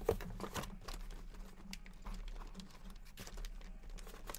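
Scattered light clicks and rustles of sealed trading-card boxes being handled and shifted, over a steady low electrical hum.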